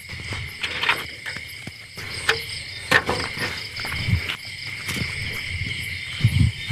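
Crickets and other night insects chirping steadily in a high chorus, with scattered sharp clicks and a few low thumps of movement close by.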